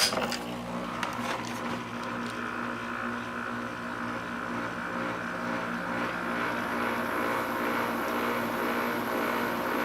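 Vintage 6,000 BTU GE Slumberline window air conditioner switched on at low speed: a click as the control turns, then the fan and compressor running steadily with a hum and a rush of air. It is pretty quiet, with a little bit of a vibration.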